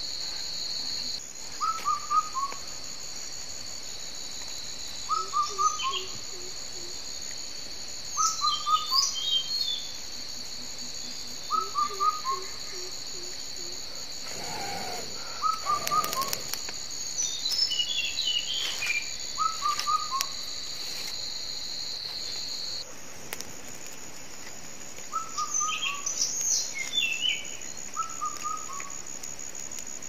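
Forest ambience of insects and birds: a steady high-pitched insect drone, one strand of which cuts off about three-quarters of the way through, while a bird repeats a short descending run of notes every three seconds or so and other birds chirp higher up.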